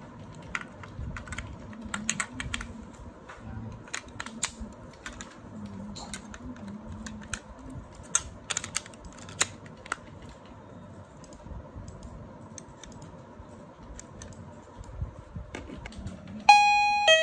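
Plastic clicks and knocks as AA batteries are pressed into a wireless door chime's receiver and its case is handled. Near the end the chime sounds a loud electronic tone, triggered by a hand passing in front of its infrared motion sensor.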